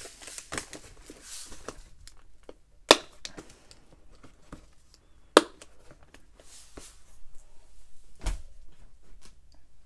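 Plastic bead containers rattling as a fabric-covered storage case is folded shut, then two sharp clicks about two and a half seconds apart as its snap-button tabs are fastened. A low thump near the end.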